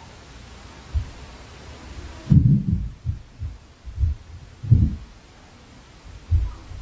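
Dull, heavy thuds coming down through the ceiling from the flat upstairs, the impact noise of people walking or stomping on the floor above: about seven irregular blows, the loudest about two and a half seconds in and again near five seconds.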